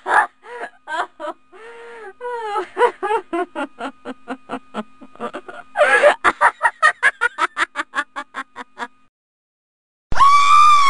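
A high-pitched girl's voice whimpering and sobbing in quick, rapid catches of breath, with a louder outburst about six seconds in. A short held high-pitched cry comes near the end.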